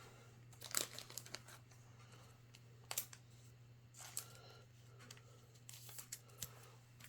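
Faint rustling and several short light clicks of thick hockey trading cards being handled between cards, the sharpest about one second and three seconds in, over a steady low hum.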